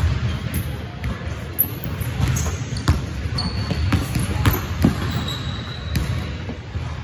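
A basketball bouncing on a hardwood gym floor in an irregular dribble, each bounce echoing in the large hall, with a couple of short high sneaker squeaks midway.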